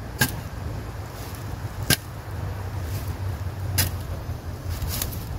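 Shovel blade chopping potatoes in half against the ground: three sharp strikes about two seconds apart, over a steady low hum.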